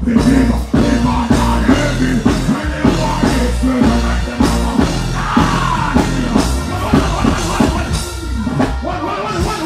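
Live reggae music played loud through a stage sound system: a male vocalist sings into a microphone over a heavy bass beat.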